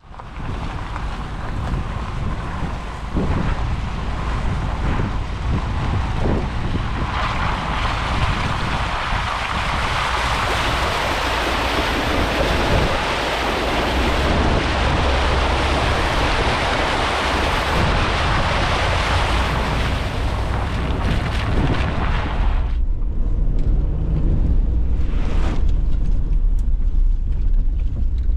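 Vehicle running through floodwater on a flooded street: a steady low road and engine rumble, with a loud rushing hiss of water spray from about seven seconds in that cuts off suddenly a little after twenty seconds.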